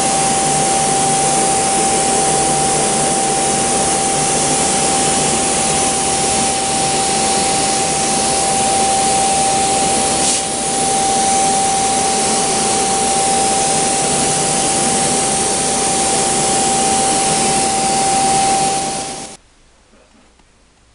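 Electric blower motor running steadily: a loud rush of air with a steady whine. It cuts off suddenly near the end.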